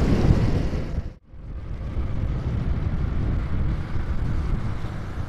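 Wind rush and road noise from a 110cc motorcycle riding along a wet road, a steady noisy rumble with no clear engine note. The sound drops out for a moment about a second in, then carries on a little quieter.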